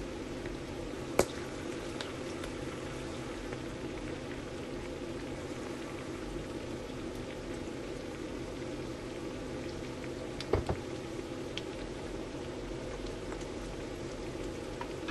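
Pork adobo boiling steadily in its soy-sauce and vinegar liquid in a covered pot, a continuous bubbling. Sharp clicks about a second in and again around ten seconds in.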